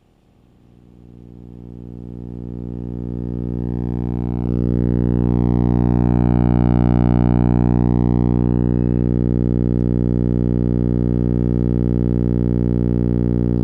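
Light-to-sound feedback loop between a Tektronix 2225 oscilloscope's CRT trace and the Lite2Sound BC photodiode board: a low electronic buzzing drone rich in overtones. It fades in as the trace brightens on the screen, steps louder about four and a half seconds in, then holds steady while its upper overtones shift.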